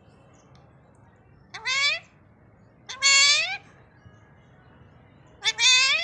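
Alexandrine parakeet giving three loud calls, each sliding upward in pitch; the middle call is the longest.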